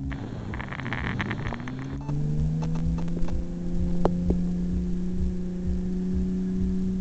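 Off-road rally vehicle's engine running, held at nearly steady revs from about two seconds in. Before that comes a stretch of dense rattling, and a few sharp knocks follow near the middle.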